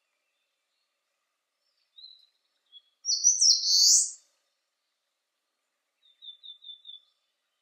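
An eastern crowned warbler sings one loud high song phrase about three seconds in; the phrase ends in a buzzy note. A faint short note comes just before it, and near the end a fainter quick run of about six thin notes.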